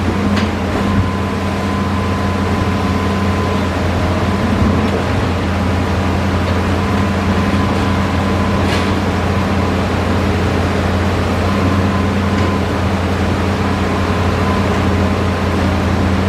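Hitachi Zaxis 5G excavator's diesel engine running at a steady speed, with a low drone and a couple of faint light ticks.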